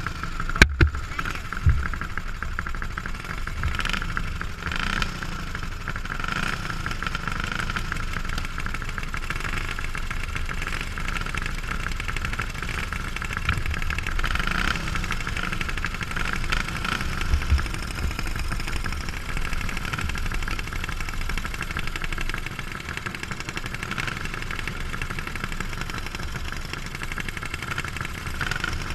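Single-cylinder go-kart engine idling steadily, with other karts' engines running around it. A sharp click sounds less than a second in.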